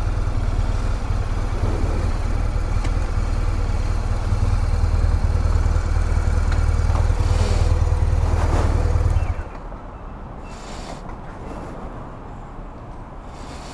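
2007 BMW R1200GS boxer-twin engine running slowly and idling as the motorcycle pulls up to a fuel pump, then switched off about nine seconds in. Faint clicks and handling noises follow.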